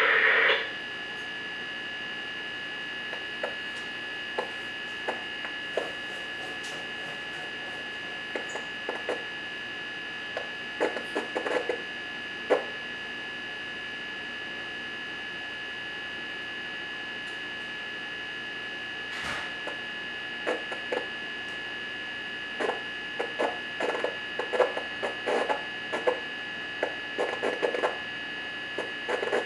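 A steady high-pitched hum with scattered short knocks and clatters, which come more often in the last third.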